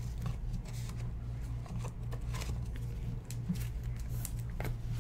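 Faint rustling and light ticks of trading cards being handled and sorted by hand, over a steady low hum.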